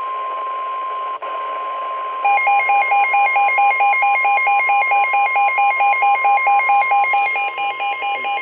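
NOAA Weather Radio 1050 Hz warning alarm tone, one steady tone with a brief dropout about a second in. After about two seconds a loud electronic alert beeping joins it, pulsing about four to five times a second: a weather radio receiver's alarm set off by the warning tone.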